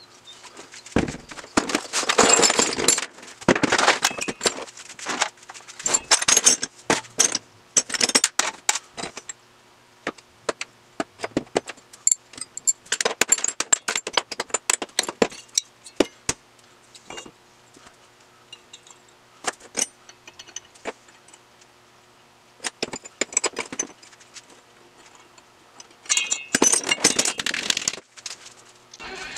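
Small metal engine parts (pistons with connecting rods, crankshafts, gears) clinking and clattering as they are handled and set down on a hardboard workbench. The sound comes as scattered knocks and clinks, in denser bursts near the start, in the middle and near the end.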